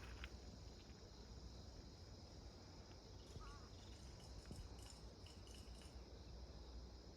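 Faint, steady chorus of crickets, one continuous high trill, over a low rumble.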